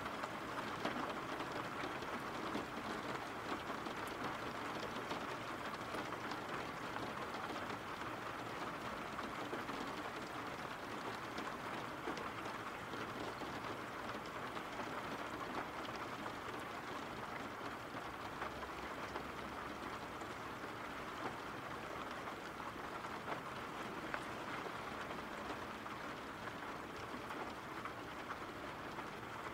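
Steady rain falling: an even hiss with scattered faint ticks of drops.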